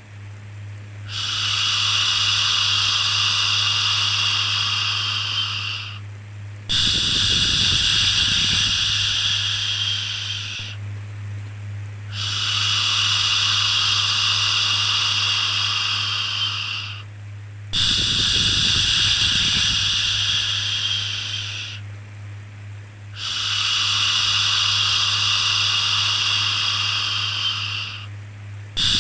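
Long, repeated 'shhh' shushing sounds for soothing a baby: five drawn-out shushes of about four to five seconds each, with short pauses between them, over a steady low hum.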